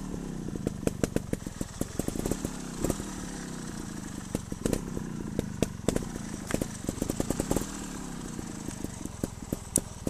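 Trials motorcycle engine pulling over rough rocky ground, its revs rising and falling again and again with short bursts of throttle. Frequent sharp clicks and knocks run through it.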